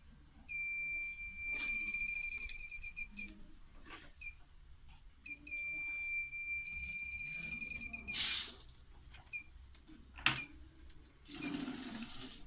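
Electronic beeping: two long high beeps of about three seconds each, with short chirps in between, and a burst of hiss near the end.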